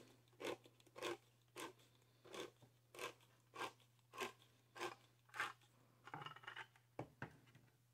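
Handheld manual can opener cutting around the lid of a tin can, crunching once with each turn of the key, about every 0.6 s. About nine crunches, then a softer scraping near the end.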